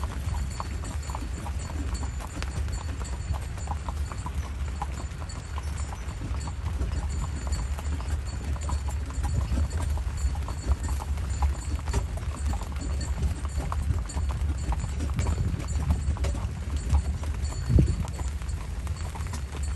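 Horse's hooves clip-clopping at a steady walk on a paved road while it pulls a carriage, over a steady low rumble. A single louder knock comes near the end.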